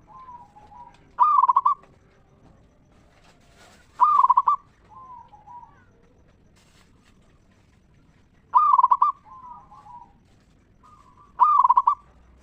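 Zebra dove (perkutut) cooing: four loud, stuttering coos about three seconds apart, each followed by a few softer, lower notes.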